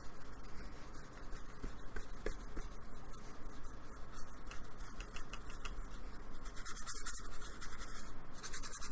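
Flat paintbrush scrubbing acrylic paint onto a board: a dry, scratchy rubbing of repeated back-and-forth strokes, with a few louder strokes near the end.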